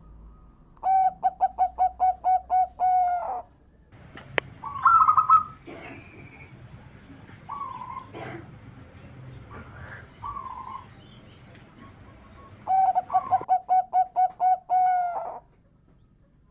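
Zebra dove (perkutut) song: two phrases of rapid, evenly repeated cooing notes, about ten to a phrase, one near the start and one near the end. In between come shorter, higher calls, the loudest about five seconds in.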